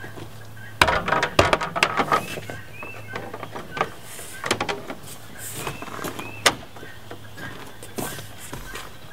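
Gutter rail trim strip being pressed by hand onto its retaining clips along a Jeep Cherokee XJ's roof drip rail. A quick run of clicks and knocks comes about a second in, followed by scattered single clicks and taps as the trim is worked into place.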